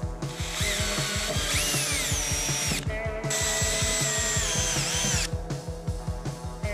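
Cordless drill with a 7/64-inch bit widening two screw holes in a car door's sheet metal, one after the other: two runs of about two seconds, the motor's whine rising and then falling in pitch as the bit bites. Background music with a steady beat plays underneath.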